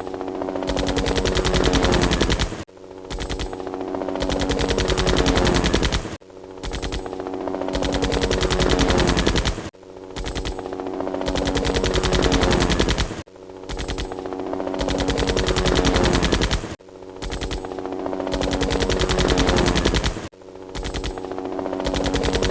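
Helicopter rotor blades chopping in a fast, steady beat, with a tone that sinks slightly in pitch. The same stretch repeats about every three and a half seconds, each time broken by a brief drop-out.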